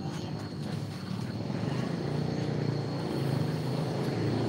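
A steady low engine drone that slowly grows louder.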